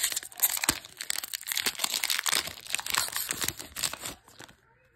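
Foil wrapper of a Pokémon card booster pack being torn open and crinkled: a sharp tear right at the start, then a dense, irregular crackle of foil as the pack is pulled apart. It dies away about four seconds in.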